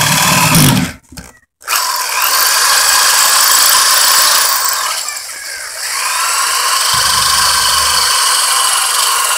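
Electric drill with a larger bit drilling out the heads of stripped screws on a small aluminium carburetor, the bit spinning on the screw head with a high whine. It stops briefly about a second in, then runs, slows and spins up again about five seconds in.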